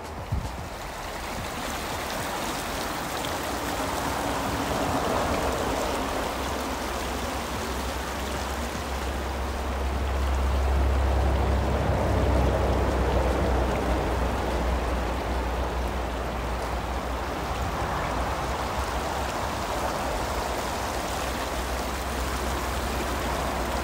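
A stream running: a steady rush of flowing water, with a deeper rumble underneath that swells about halfway through.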